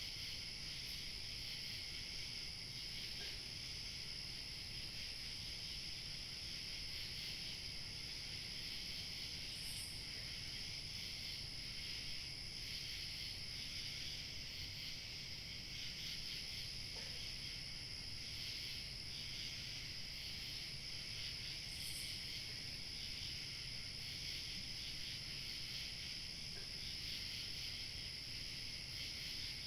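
A chorus of crickets chirping continuously, with a thinner, higher insect trill above it. Light wind makes a low rumble underneath.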